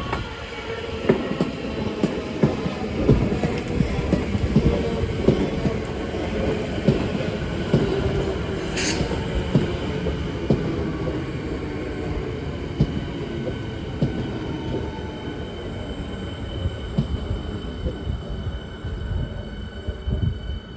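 Siemens Nexas electric train rolling in, with a steady low rumble and wheels clacking over rail joints again and again. There is a short hiss about nine seconds in, and a faint high whine in the last few seconds.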